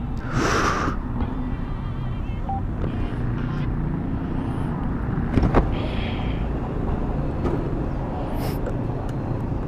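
A motor vehicle engine rumbling steadily and low, with a few brief hissy noises.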